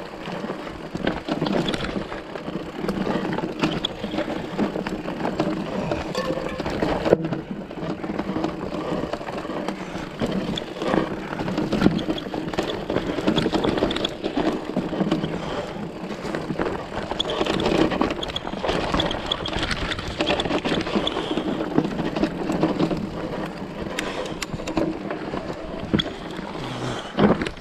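Mountain bike riding down a rough dirt and stone singletrack: tyres rolling and crunching over dirt and stones, with the bike rattling and clattering at each bump.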